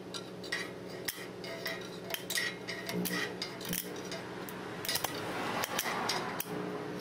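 Arc-welding rod in a stick welder's electrode holder tapping and scratching against a steel socket to strike an arc at 75 amps, the arc not holding. Irregular metallic clicks and short crackles over a faint steady hum, with a longer crackle about five seconds in.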